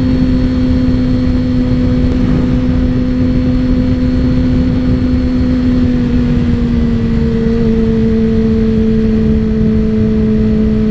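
Yamaha YZF-R6 sport bike's inline-four engine running at a steady cruise, its pitch easing slightly lower about six seconds in, under heavy wind rush on the microphone.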